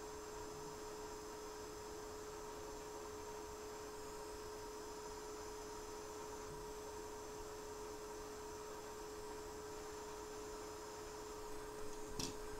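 Steady electrical hum with a faint high-pitched whine, and a single sharp click near the end.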